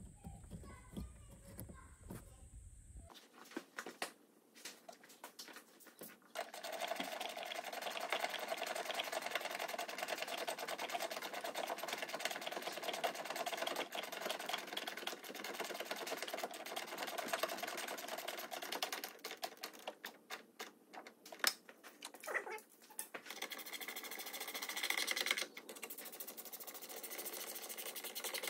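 Socket ratchet wrench clicking rapidly as a nut is turned, in one long run and a shorter second run near the end.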